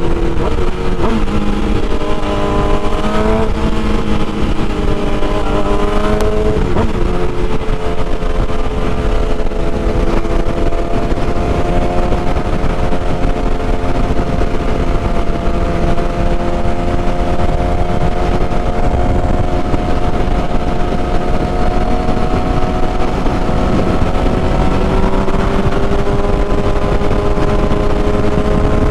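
Sport bike's inline-four engine and exhaust cruising at highway speed, a steady drone over a dense low rumble. The engine note shifts pitch in the first several seconds, then holds steady and rises slightly a little past the twenty-second mark.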